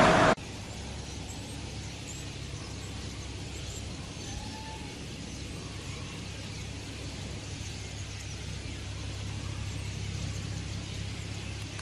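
A flock of common starlings in flight, many faint short chirps scattered throughout over a steady low hum. A loud rushing noise cuts off abruptly in the first moment.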